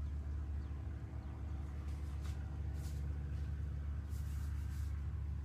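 A steady low machine hum, with a few faint brief rustles about halfway through and again near the end.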